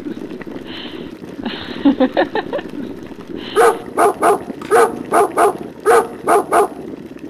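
Dog barking: a rapid series of about nine sharp barks, roughly three a second, in the second half. A shorter run of quicker, fainter sounds comes about two seconds in.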